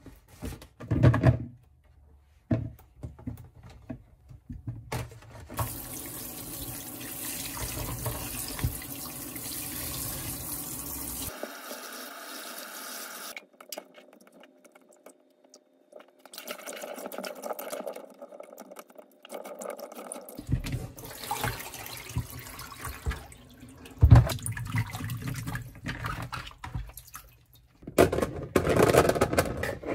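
Tap water running into a stainless steel sink and a plastic colander for several seconds, then splashing as grapes are rubbed and rinsed by hand in the water, with a few knocks. Near the end comes a rattling rush as the wet grapes are poured from the colander into a plastic container.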